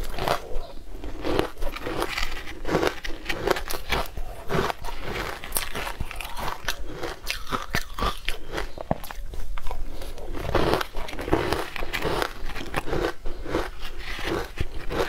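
A person biting and chewing a crunchy food, close to a clip-on microphone: a quick, irregular run of crisp crunches and crackles.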